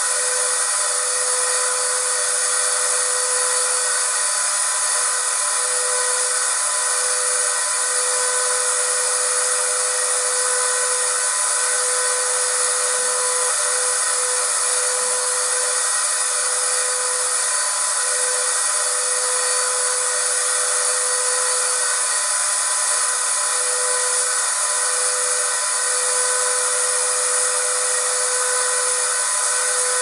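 Vacuum cleaner running continuously: a steady motor whine over a loud hiss of rushing air, with no change in speed or pitch.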